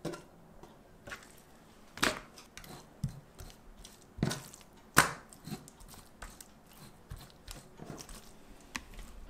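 Chef's knife scoring boneless chicken thigh on a plastic cutting board: a handful of sharp, irregularly spaced knocks as the blade hits the board, the loudest about five seconds in.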